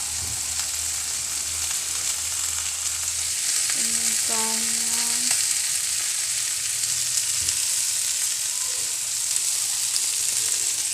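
Fish sizzling steadily in hot oil as it grills in a pan, a continuous hiss. Briefly, about four seconds in, a short pitched sound rises above the hiss.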